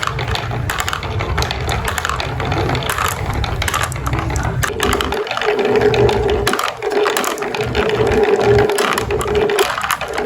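Marbles rolling and clacking down a wooden marble run, a dense run of quick clicks over a low rumble, with a steady hum joining about halfway through.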